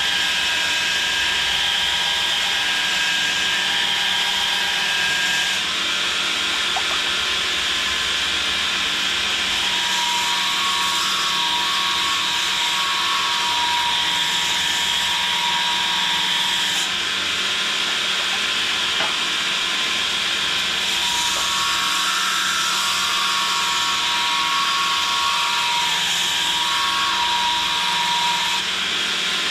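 Belt grinder running steadily with a small steel kiridashi blade held against the abrasive belt: a continuous grinding hiss over the motor's steady whine.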